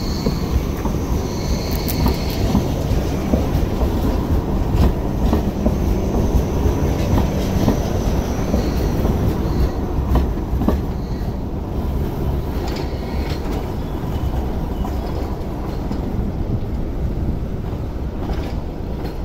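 Two-car MTR Light Rail train passing at close range and rolling away over pointwork: a steady rumble of steel wheels on rail, with a few sharp clicks as the wheels cross rail joints and a faint high wheel squeal in the first couple of seconds.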